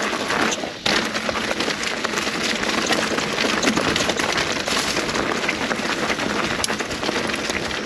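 Mountain bike knobby tyres rolling fast over dry leaf litter and loose dirt, a dense continuous crackle and rattle, dropping out briefly a little under a second in.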